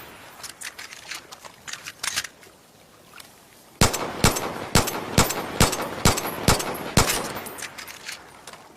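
Ed Brown 1911 pistol firing a quick string of about eight shots, roughly two a second, each a sharp crack with an echoing tail. A few fainter cracks come before it, then a short lull.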